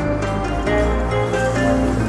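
Background music: a gentle melody of held notes over a low sustained bass, with no drum beat.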